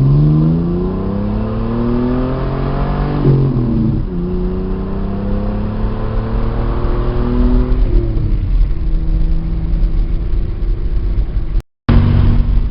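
1985 Pontiac Fiero GT's V6 heard from inside the cabin through its new larger exhaust and aftermarket muffler, accelerating: the note rises, drops at a gear shift about three seconds in, climbs again, then settles to a steady cruise. The sound cuts out for a moment near the end.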